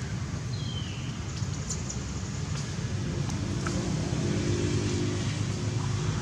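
Steady low rumble of motor traffic, with a faint engine drone from about three seconds in. One short, high call falls in pitch about half a second in.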